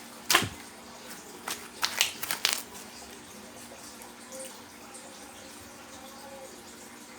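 Homemade slime being pressed and worked by hand in a bubble test, giving one sharp click-like pop about a third of a second in and a quick run of smaller wet clicks and pops around two seconds in.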